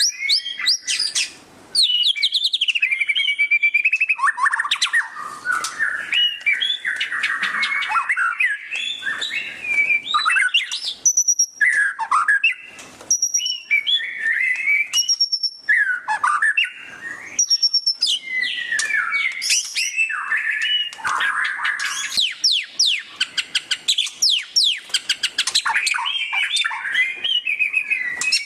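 White-rumped shama singing loudly in a long, varied run of rapid chattering trills, fast down-sweeping notes and clear whistles, broken by short pauses: the 'ngeriwik' chatter style of the murai batu.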